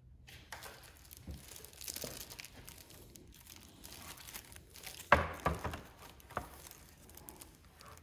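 Clear plastic film wrapped around a motorcycle headlight crinkling as it is handled, with a few sharp knocks of plastic parts about five seconds in and again a second or so later.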